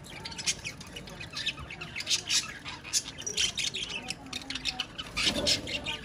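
Several budgerigars chattering and squawking together: a dense run of short, rapid chirps and squawks, with a louder, fuller burst about five seconds in.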